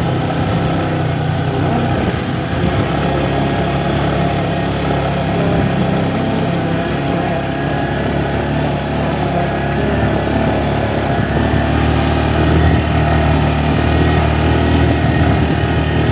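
Vehicle engine running steadily under way on an uphill road, with a constant low hum and heavy road and wind noise.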